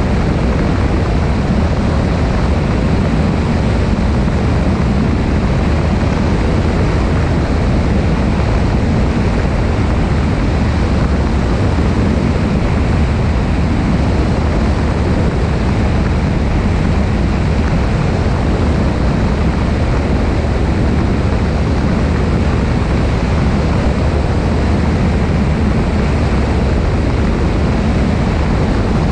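Cessna 172 light aircraft in flight: a steady engine and propeller drone with wind rushing over the wing-mounted camera's microphone.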